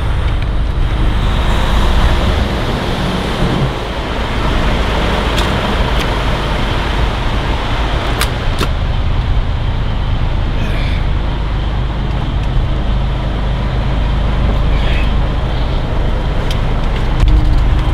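Diesel engine of a 1984 Peterbilt 362 cabover semi, heard from inside the cab as the truck pulls away from a toll booth, with road noise and a few sharp clicks.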